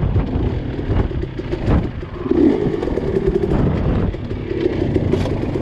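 A 250 dirt bike's engine revving up and down in uneven bursts as it is ridden over rocks, with a few sharp knocks of the bike striking rock.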